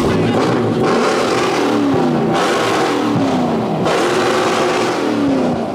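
Car engine revving hard over and over, its pitch swinging up and down every second or so, with a loud rushing noise through much of it.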